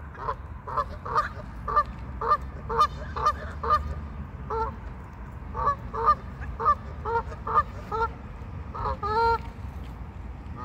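Waterfowl calling over and over: a run of short calls, about two a second, with a few longer, drawn-out calls near the end, over a low steady rumble.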